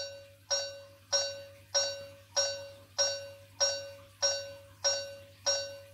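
Locomotive bell sample played by the sound decoder of a Trix H0 V140 model locomotive: a single bell struck steadily, about ten strikes a little more than half a second apart, each ring fading before the next.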